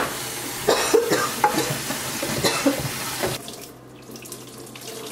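Kitchen tap running hard into a pot of cooked spaghetti in the sink, rinsing off the starchy cooking water. About three and a half seconds in the rush stops and a quieter stream of water is poured off past the pot lid into the sink.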